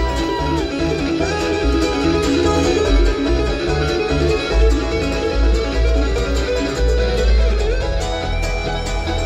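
Live bluegrass band playing an instrumental passage: acoustic guitars, banjo and mandolin over upright bass.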